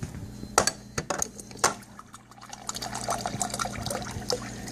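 Water from a Frigidaire refrigerator's door dispenser running into a glass tumbler, with a few sharp clicks in the first two seconds, then a steadier stream filling the glass over a low steady hum. The water line is being flushed to purge the air from it.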